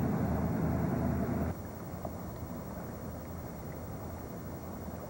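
A low, steady engine rumble with a hum in it, cutting off abruptly about a second and a half in and leaving a quieter, even outdoor hiss.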